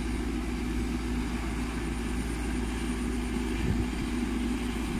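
Maxxi NDR 102L crawler combine harvester's diesel engine running steadily, an even drone with a constant hum.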